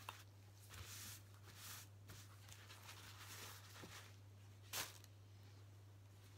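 Faint rustling and swishing of paper towel being handled by gloved hands, with one louder, brisk rustle about five seconds in, over a low steady hum.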